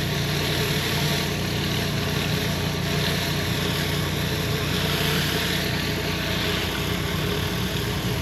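An engine running steadily, a constant hum with a hiss over it.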